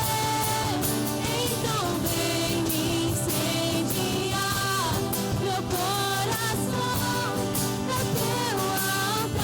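Contemporary Christian worship song performed by a band, with a solo voice singing a melody of held and gliding notes over steady instrumental accompaniment.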